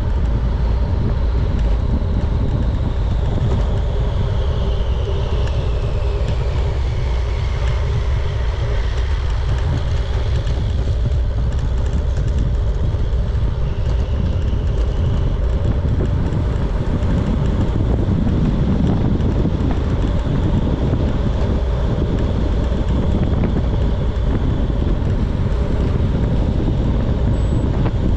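Steady low wind rumble across the microphone, with road noise from a moving bicycle.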